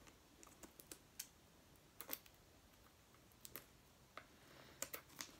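Faint, irregular clicks and taps of fingers working at a card deck's box packaging to open it.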